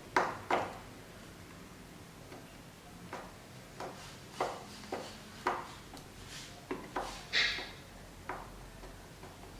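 Scattered light clicks and knocks of tools and hard plastic being handled during plastic welding work on a headlight housing, about a dozen in all, with a short scraping hiss about seven seconds in.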